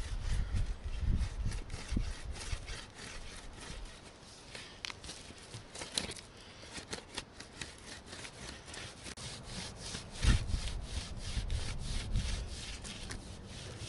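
A wooden rabbit stick (primitive throw stick) rasping as it is drawn back and forth across a flat stone in quick repeated strokes. The stone is scoring its edges with small grooves and smoothing off snags. A low knock about ten seconds in.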